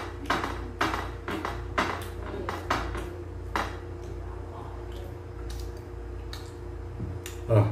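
Eating sounds: a run of sharp clicks and taps as food is scooped by hand from a plate and chewed, thinning out after a few seconds. A steady low hum runs underneath, and one louder short sound comes near the end.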